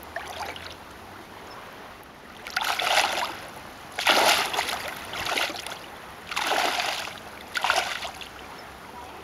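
Legs wading through shallow water, the water sloshing and splashing in about six separate bursts, a second or so apart.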